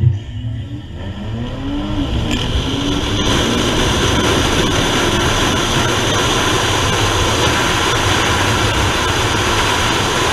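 Mercedes C43 AMG's twin-turbo 3.0-litre V6 launching hard from the line and pulling up through the gears, its note rising and dropping back at each shift. From about three seconds in, a loud steady wind rush covers the engine.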